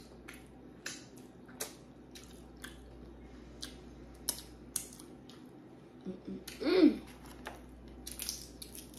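Close-up eating sounds: crab-leg shells cracking and snapping, with mouth sounds, heard as an irregular scatter of sharp clicks. About seven seconds in comes a short wordless vocal sound from the eater, the loudest moment.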